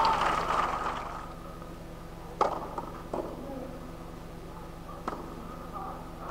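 Tennis ball struck with a racket on a clay court: one sharp crack about two and a half seconds in, a smaller knock under a second later, and another crack near the end, over a hushed crowd. The crowd murmur dies away in the first second.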